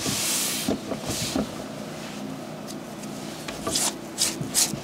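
A sneaker being cleaned by hand. There are two longer rubs at the start, then quick scrubbing strokes from near the end, two or three a second, as a small brush works the rubber midsole and sole.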